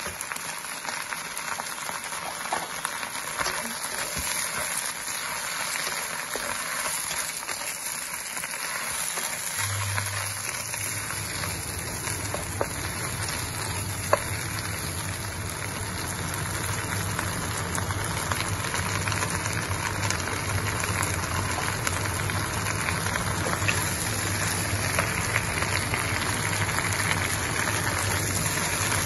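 Leafy greens sizzling as they are stir-fried in a wok and turned with a wooden spatula, with one sharp knock near the middle. A steady low hum comes in about a third of the way through.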